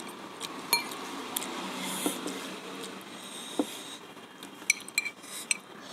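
Close-miked eating of spicy ramen noodles: soft chewing with a few light clinks of forks against glass bowls, a cluster of them near the end.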